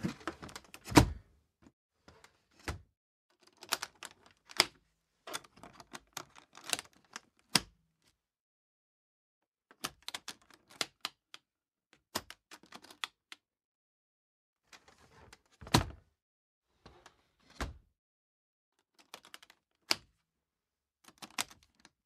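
Aluminum attaché case being opened and closed: metal latches snapping, the lid and hinges clacking, and small rattles of the hardware. The sound comes as a series of sharp clicks and knocks in short clusters with pauses between, the loudest clacks about a second in, near the middle, and again about three quarters of the way through.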